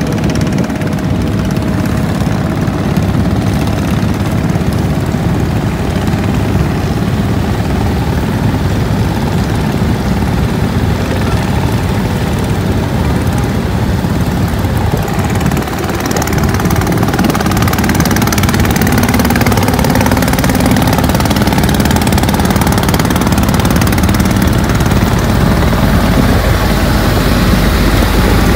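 Motorboat's engine running steadily under way, a continuous low rumble that grows slightly louder after a brief dip about halfway through.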